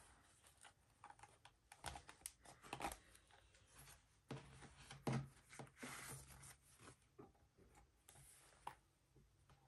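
Faint scattered clicks and paper rustling as a stack of planner pages is lifted off a ring planner's open metal rings and a flyleaf is fitted onto them.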